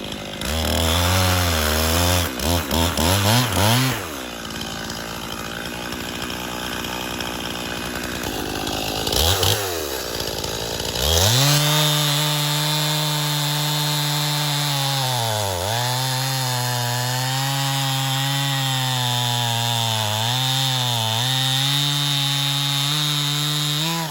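Stihl two-stroke chainsaw bucking a felled red oak log: it revs in quick blips, then cuts for several seconds with the engine note buried in a rough, loud noise, then runs at high speed with the note sagging briefly a few times under load.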